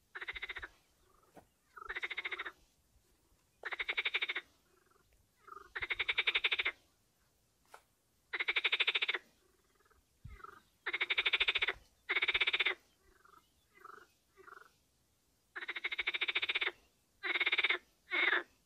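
Frogs croaking: a run of loud pulsed calls, each up to about a second long and coming every second or two, with fainter short calls in between.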